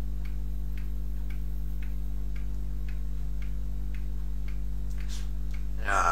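Faint, regular ticking about twice a second, like a clock, over a steady low electrical hum.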